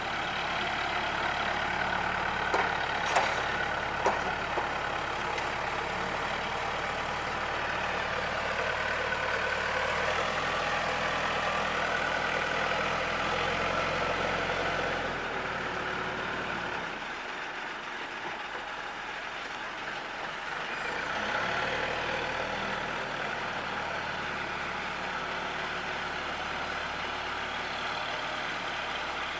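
Diesel engine of heavy earth-moving machinery running steadily. It drops off for a few seconds past the middle, then picks up again. A few knocks come near the start.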